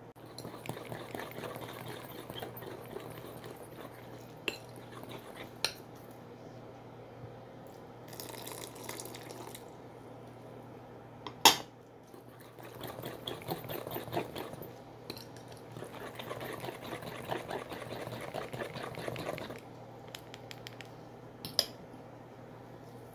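Metal wire whisk beating a thick, wet spice marinade in a glass bowl: rapid scraping and clinking of wire on glass in several spells, with a few sharp clinks, the loudest about halfway through.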